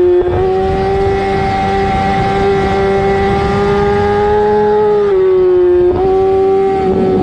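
Sportbike engine heard from on board, running at high revs around 12,000 rpm in third gear under throttle. The steady high note sags briefly about five seconds in as the revs ease, then picks back up.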